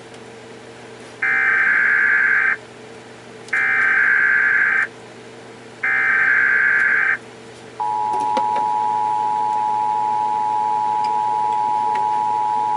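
Emergency Alert System tones: three bursts of the SAME data header, each a warbling tone about a second long, followed about eight seconds in by the steady two-tone attention signal.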